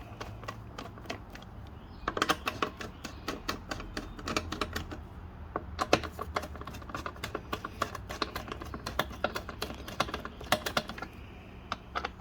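Socket ratchet clicking in quick runs as it loosens the 8 mm bolts on a push mower's top cover, with a short pause about five seconds in.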